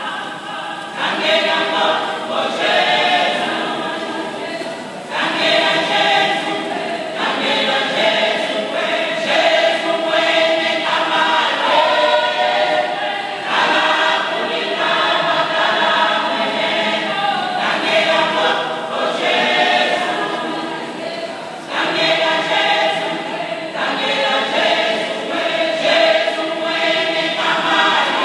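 Women's choir singing a gospel song in chorus, in phrases of a few seconds with short breaths between them.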